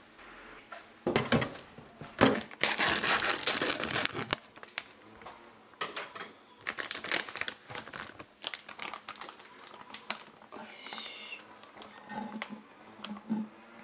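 Plastic bag of flour crinkling and rustling as it is handled and tipped to pour flour into a glass storage jar, with the loudest run of crackling about two to four seconds in.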